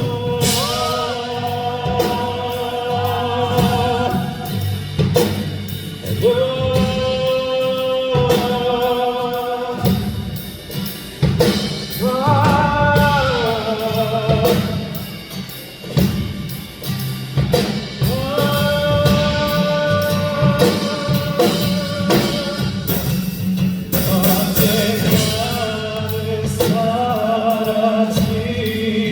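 Live ballad performance: a male singer holding long sung notes over band accompaniment with drums.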